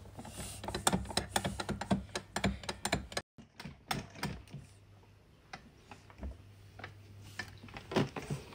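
Rapid plastic clicking and tapping from a child's hands on a toy ride-on car's steering wheel. The clicks come thick and fast for about three seconds, then grow sparser, over a steady low hum.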